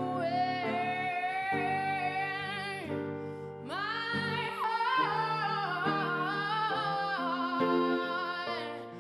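Female voice singing long held notes with vibrato over guitar accompaniment, in an acoustic pop performance. One long note fades about three seconds in, and a new phrase starts with a rise in pitch just after.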